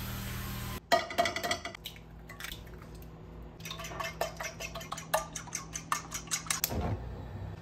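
Cooking spray hissing into a frying pan for under a second, then a few light taps against the pan. A fork whisks eggs in the pan, its tines clicking rapidly against the pan's bottom, several clicks a second.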